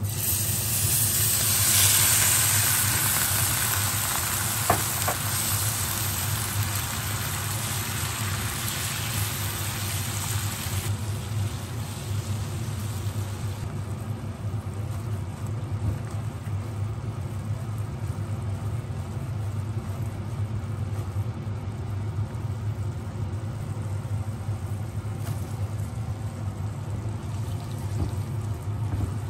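Water poured into a hot pan of oil, fried dried shrimp and Korean fried sauce sizzles loudly, swelling in the first two seconds. Over about ten seconds the sizzle eases to a steadier, quieter bubbling of the sauce, with one sharp click near the start and a steady low hum underneath.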